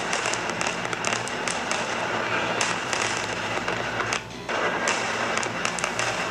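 Fireworks crackling and popping in a dense, continuous stream of sharp cracks over a steady rumble, with a brief drop in the noise about four seconds in.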